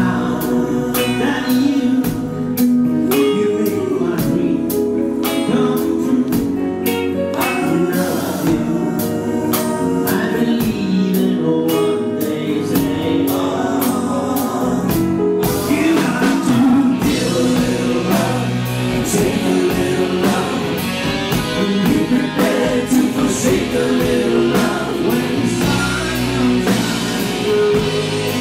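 A live pop-rock band plays with a male lead vocalist singing into a handheld microphone over a steady drum beat. About halfway through the accompaniment grows fuller and brighter.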